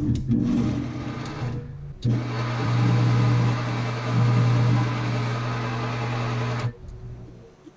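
Metal-cutting shop machine running: a steady motor hum with a noisy cutting sound over it, coming in about two seconds in and stopping abruptly near the end.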